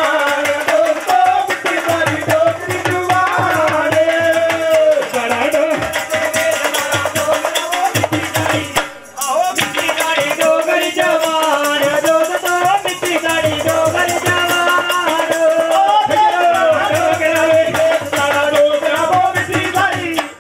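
Live Dogri folk music: a wavering, sustained melody over dholak drum beats and dense rattling hand percussion, with a short break about nine seconds in.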